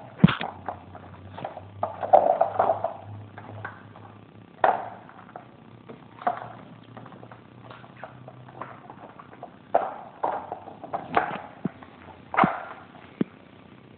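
Boxer puppy moving about: irregular light taps and knocks, a dozen or so, a few of them louder.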